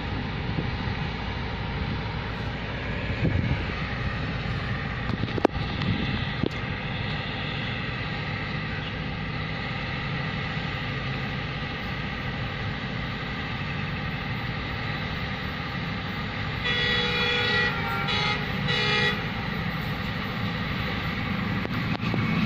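Diesel locomotive rumbling as it approaches. About three-quarters of the way through it sounds its horn in three blasts, the first the longest, and its rumble grows louder near the end.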